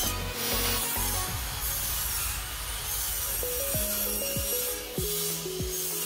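Background music with a plucked melody stepping from note to note, over a rasping, rubbing noise of wood being worked with a hand tool.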